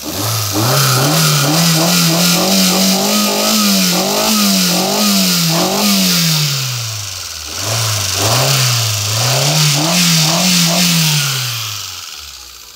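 Hyundai Santro Zip's 1.0-litre petrol engine revved several times by hand at the throttle and let back down, the pitch climbing and falling with each blip and settling back toward idle near the end. It runs clean, with no tappet ticking or rod knock to be heard: the sign of a sound bottom end.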